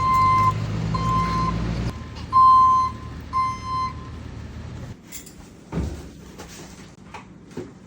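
Delivery truck reversing, its backup alarm giving one steady high beep about every second over the engine running; the beeping stops about four seconds in, followed by a few knocks.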